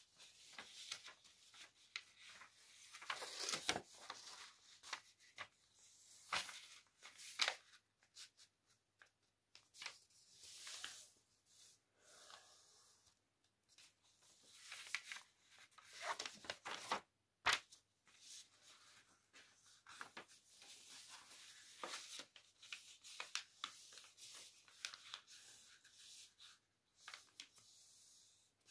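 A sheet of paper being folded by hand: irregular rustling and crinkling as it is turned over and smoothed along its creases, with a few sharper snaps, about three, seven and seventeen seconds in.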